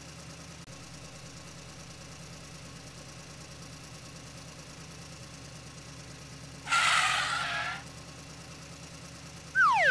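An engine idling with a steady low hum. About seven seconds in, a loud hissing burst lasts about a second. Just before the end, a falling whistle-like sound effect starts.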